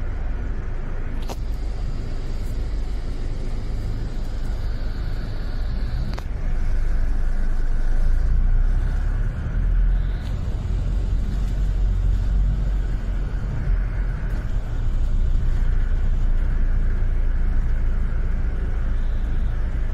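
Double-decker bus running along the road, heard from its upper deck: a steady low engine and road rumble that grows louder about six seconds in, with a couple of sharp clicks and a faint high whine that stops at the second click.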